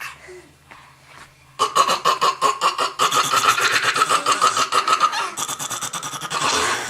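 A little girl making a funny vocal noise: a high, squeal-like voice broken into rapid rattling pulses. It starts abruptly about a second and a half in and runs for about five seconds.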